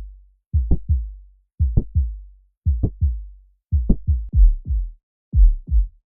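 Heartbeat sounds: a low thud, a sharp click and a second thud, repeating about once a second. Near the end they give way to heavier, quicker thuds and then stop.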